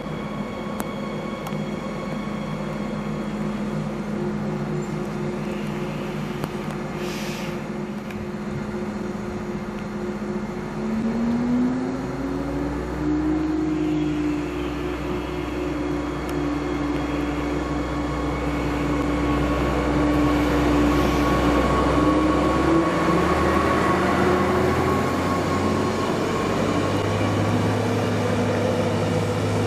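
A DB class 646 (Stadler GTW) diesel multiple unit running slowly past a station platform with its diesel engine going. About a third of the way in, the engine note rises and holds higher as it powers up, adding a deep low hum.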